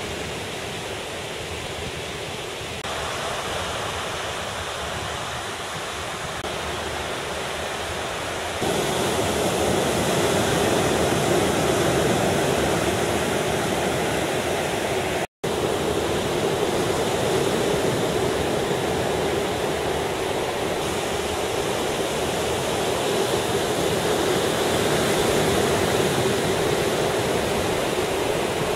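Surf breaking and washing onto a sandy beach: a steady rushing noise that gets louder about nine seconds in and cuts out for an instant about halfway.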